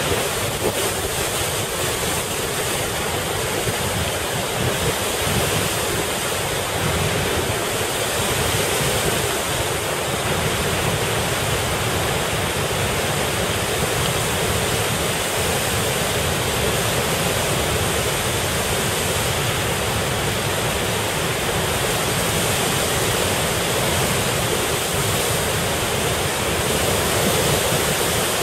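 Floodwater rushing in the swollen river below the dam: a loud, steady, unbroken wash of noise.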